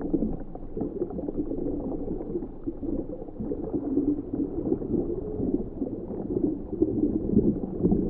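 Steady, muffled bubbling and gurgling water, with nothing in the high end.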